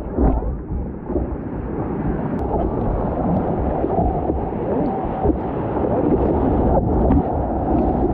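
Surf and wind rushing over a surfboard-mounted action camera as the board rides through breaking whitewater: a dense, rumbling wash that slowly grows louder.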